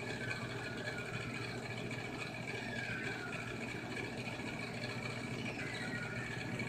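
A film soundtrack playing from a TV, picked up by a phone in the room: a steady rushing hiss with faint, wavering high cries gliding up and down, the screeches of the film's pteranodons.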